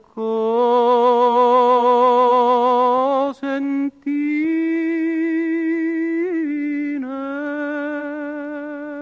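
A male tenor voice singing unaccompanied, holding three long notes with wide vibrato: the drawn-out final phrase of an Italian song. The first note is the loudest and breaks off after about three seconds; the second steps higher and carries a short flourish partway through.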